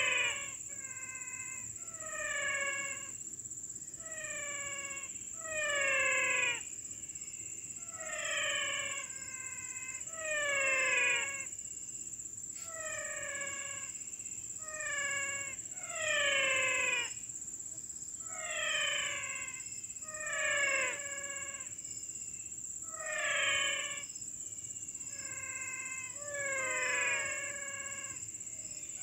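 A wild animal calling over and over, each call a short note that falls in pitch, repeating about every one to two seconds. Behind it runs a steady high insect trill.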